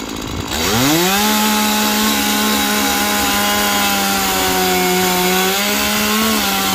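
Stihl chainsaw revving from idle up to full throttle about half a second in and held at high revs, with a couple of brief dips in pitch near the end.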